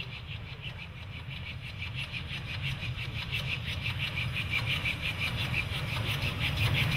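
GWR Manor class two-cylinder 4-6-0 steam locomotive working a passenger train, its quick, even exhaust beats over a low rumble growing steadily louder as it approaches.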